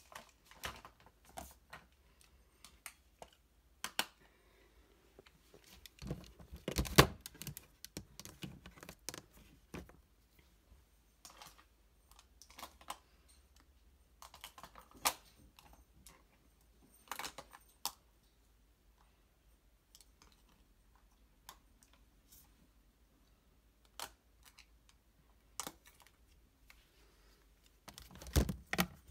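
Makeup compacts clicking and clattering against plastic drawer baskets as they are put away one by one: scattered sharp clicks and knocks, with a louder cluster about a quarter of the way in and again near the end.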